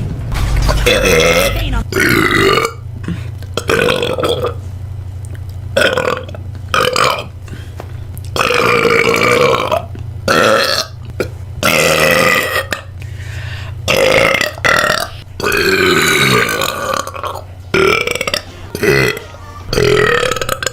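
A woman belching: a string of about a dozen long, deep burps, each lasting around a second, with short pauses between them and some sliding in pitch.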